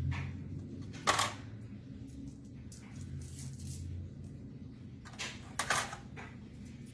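Pennies clinking as they are dropped one at a time into a tin foil boat floating in water, landing on the pennies already inside. There are a few separate clinks, the loudest about a second in, then a quick cluster about five seconds in.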